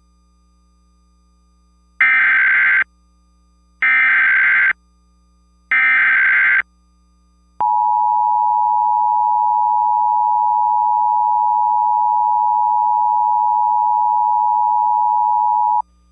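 Emergency Alert System activation: three short bursts of the SAME digital data header, each under a second, then the steady two-tone EAS attention signal held for about eight seconds.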